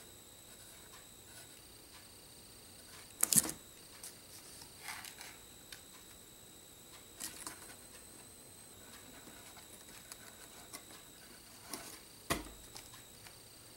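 Quiet handling noises at a workbench while epoxy is spread on a model rocket: scattered light taps and scrapes, with a sharp knock about three seconds in and another near the end.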